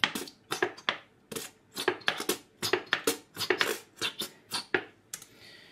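Plastic squeeze bottle of mayonnaise being squeezed onto a spoon: a quick, irregular series of short squelches and splutters, about three or four a second, that stops shortly before the end.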